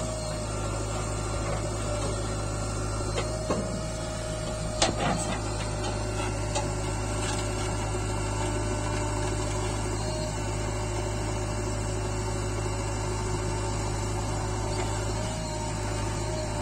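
JCB 3DX backhoe loader's diesel engine running steadily as the backhoe digs soil and dumps it into a tipper truck. A few sharp knocks from the arm and bucket come about three and a half and five seconds in.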